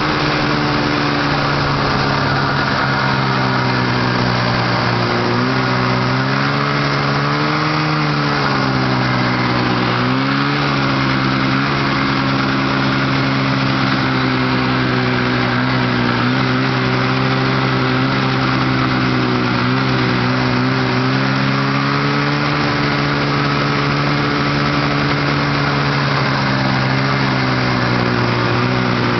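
1971 Polaris TX Charger snowmobile's two-stroke engine running under way, heard from the rider's seat. Its pitch rises and falls a few times in the first ten seconds or so, then holds fairly steady.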